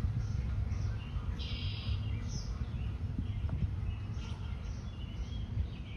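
Small birds chirping, many short high calls scattered over a steady low background rumble.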